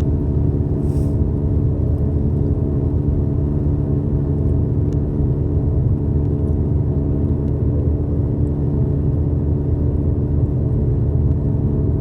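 A steady low mechanical rumble with a hum, level and unchanging throughout.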